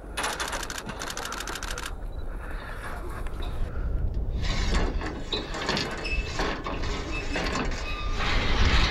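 A rapid, ratchet-like clicking rattle for nearly two seconds at the start, followed by irregular bursts of rustling.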